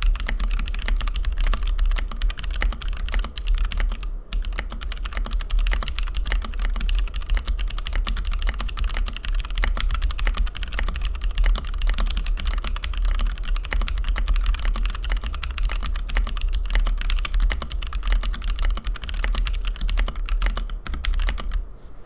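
Fast continuous typing on a TKC Portico 65% gasket-mount keyboard with stock, unlubed C³Equalz x TKC Kiwi tactile switches and PBT keycaps. There is a brief break about four seconds in, and the typing stops shortly before the end.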